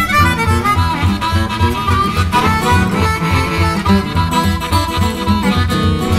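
Electric blues band recording: a harmonica plays the lead with bending, sliding notes over a steady pulsing bass line and guitar.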